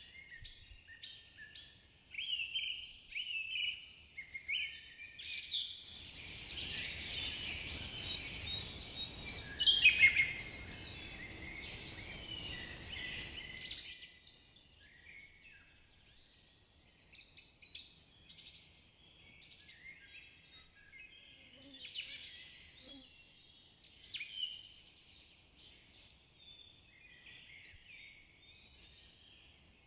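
Wild birds chirping and singing, many short high calls overlapping, loudest in the first half. A low rushing noise sits under them for several seconds in the middle and stops about halfway through, after which the calls carry on more thinly.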